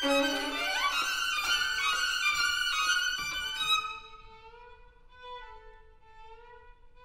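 Two violins playing a dense, busy passage with a sliding upward glide about half a second in. About four seconds in the music drops away to a soft, held high note with a slight waver.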